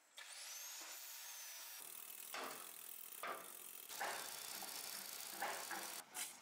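An angle grinder with a cutting disc whines up in pitch and holds as it cuts into a steel bar. This is followed by a run of sharp, irregular metal clanks and knocks from work on steel.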